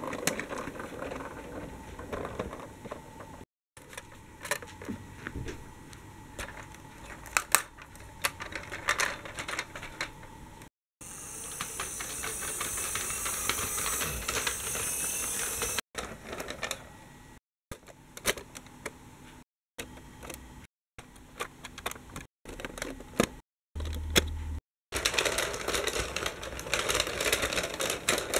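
Plastic toy trains and buses rolling along plastic track, a rapid irregular clicking and rattling of wheels and bodies, cut into short pieces with brief silent gaps. A steady hiss lasts several seconds in the middle.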